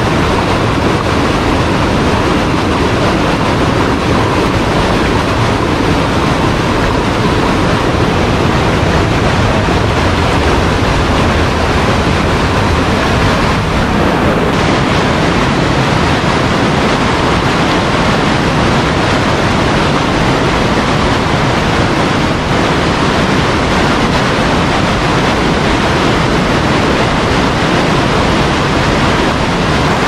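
Loud, steady rush of white-water rapids and small cascades pouring between boulders in a rainforest creek.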